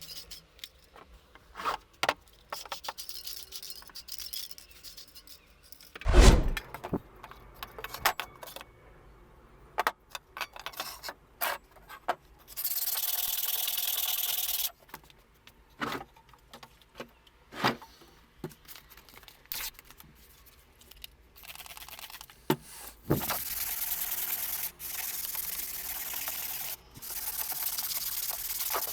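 Workshop hand-work sounds: scattered clicks and knocks, a loud thump about six seconds in, then steady hissing, once for about two seconds and again for most of the last seven seconds.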